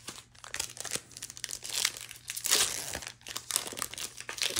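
A foil-wrapped Magic: The Gathering booster pack being torn open and its wrapper crinkled, a dense crackling rustle loudest about halfway through.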